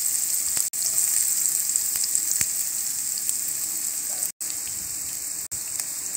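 Chopped red onions frying in hot oil in a nonstick wok: a steady high sizzle with small crackles. The sound drops out completely for an instant three times.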